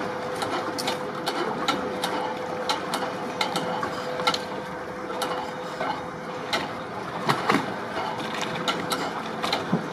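Dockside electric hoist lowering a wooden sailboat on slings into the water: a steady motor whine with many irregular clicks and ticks from the hoist mechanism.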